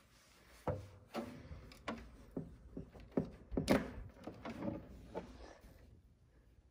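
Scattered knocks, clicks and rattles of cables and equipment being handled, with one louder knock about three and a half seconds in.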